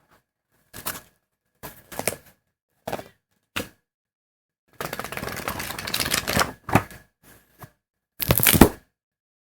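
Paper pages being flipped: a series of separate page turns, each a short crisp rustle, with a longer continuous rustle of pages about five seconds in and the loudest flip near the end.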